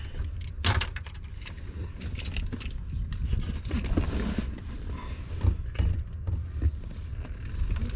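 Hands working on truck wiring: scattered scrapes, rattles and clicks of wires and parts being handled, with a sharp click about a second in, over a steady low rumble.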